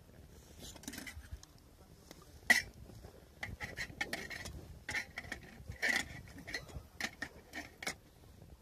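Utensils clinking and knocking against camp cookware and tableware: one sharp knock about two and a half seconds in, then a run of light clinks.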